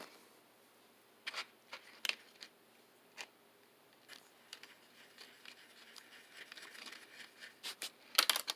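Faint scratching and tapping of a paintbrush being wetted and worked around in a watercolor pan, with a stretch of light scrubbing in the middle and a few sharper clicks near the end.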